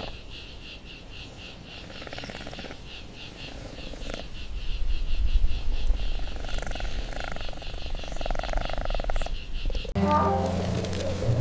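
A night-time animal chorus: rapid, even high chirping, about five a second, with a low rumble swelling in the middle. About ten seconds in it cuts off abruptly and a different sound with low steady tones begins.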